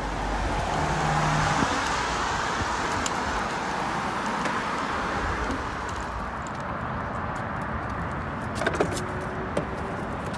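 A car passing on the road, its tyre and engine noise swelling and then fading away after about six seconds. A few sharp clicks follow near the end.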